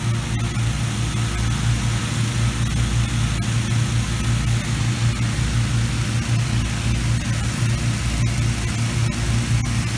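Engine-driven inflator fan running steadily with a constant low hum, blowing cold air into a hot-air balloon envelope during cold inflation.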